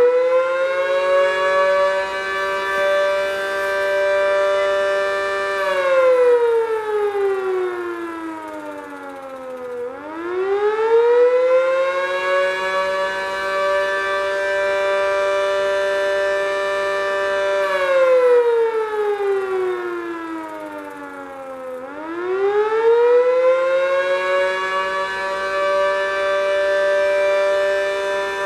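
H.O.R. Siro-Drone fire siren sounding its attack signal: two tones held together at full pitch, winding down and back up twice, with about six seconds held at the top each time. The siren is worn and sounds rough.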